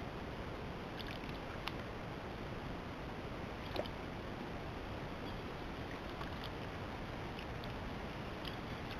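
A raccoon wading and pawing about in shallow pond water, with small splashes and drips every second or two over a steady hiss.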